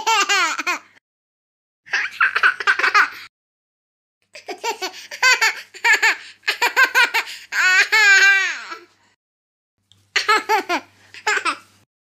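A run of cartoon laughter sound effects: about four separate clips of high-pitched, rapid giggling and laughing, each cut off sharply into silence before the next begins.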